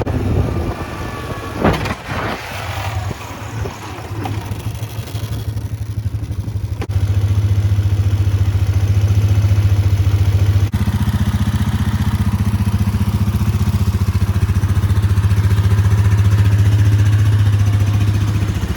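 1995 Polaris Magnum 425 ATV's liquid-cooled four-stroke engine running as the machine is ridden. It gets louder about seven seconds in, then holds a steady note, with a brief dip and change in tone a few seconds later.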